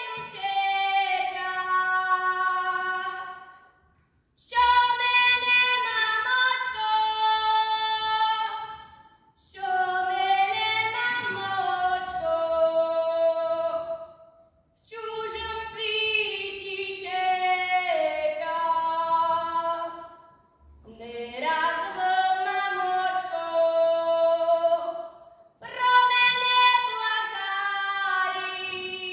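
A young girl's solo voice singing a Slovak folk song unaccompanied, in a run of sung phrases of about five seconds each with short breaths between them.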